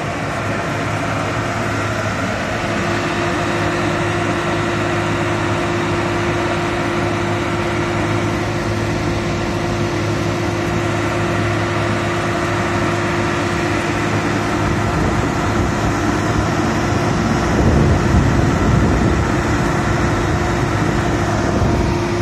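Dynapac F141C asphalt paver running steadily under load, its diesel engine holding a steady note with a constant whine over it. A deeper, louder rumble swells about 17 to 20 seconds in.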